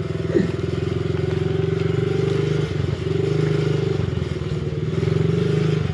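Pit bike engine running at low speed while riding slowly, a steady hum that rises and dips a little in pitch.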